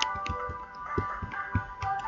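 Calm instrumental music: held tones with soft low thumps and light clicks scattered through it.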